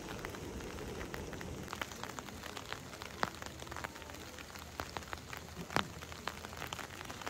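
Steady rain with irregular sharp hits of single drops close by; two hits, about three and six seconds in, stand out louder.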